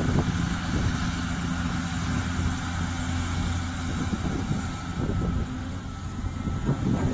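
Diesel engine of a large material handler excavator running steadily, with a few knocks near the end.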